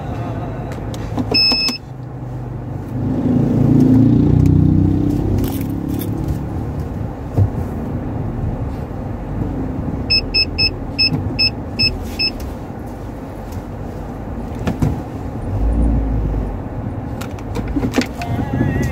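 Inside a moving car: a steady low rumble of engine and road noise, swelling for a couple of seconds about three seconds in. A single short high electronic beep sounds about a second and a half in, and a quick run of about eight short high beeps comes about ten seconds in.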